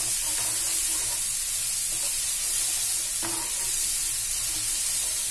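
Green chilli, ginger and garlic paste sizzling in hot oil in a small kadai, with a steady hiss. A steel spoon scrapes and stirs it a few times.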